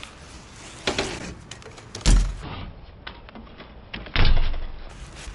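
BMX bike on a concrete skatepark ramp: several thuds of the wheels hitting and landing, the loudest about two seconds in and again about four seconds in.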